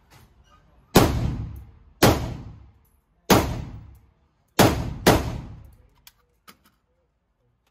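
Five rifle shots from an AK-74 in 5.45×39 mm, fired at an uneven pace of about one a second, the last two close together, each with a long echoing tail in the indoor range. A few faint clicks follow.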